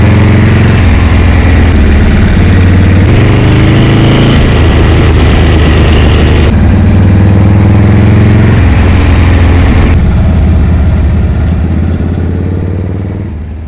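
Shovelhead V-twin motorcycle engine running under way, its note stepping up and down a few times, with wind noise over it; the sound fades out near the end.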